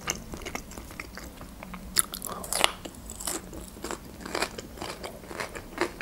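Close-up chewing of a mouthful of raw bell pepper, with irregular crisp crunches, the loudest about two seconds in and again near the end.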